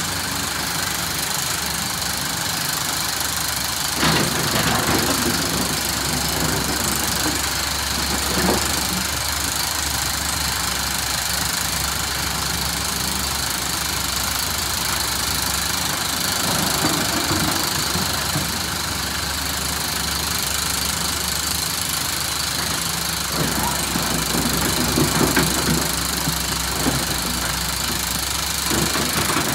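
SANY SY365H excavator's diesel engine running steadily while the machine works loading andesite stone, with louder clunks and rattles now and then, the loudest about four seconds in and again near the end.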